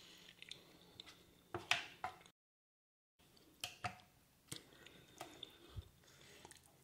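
Faint eating sounds: scattered small clicks and wet mouth and food noises from someone eating a meal. It drops to dead silence for under a second about two seconds in.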